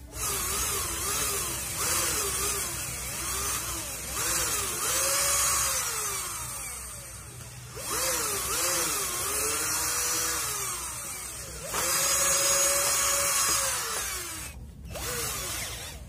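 Cordless drill boring into a coconut-shell lampshade piece in repeated runs of several seconds each, its motor whine climbing and falling as the trigger is squeezed and eased.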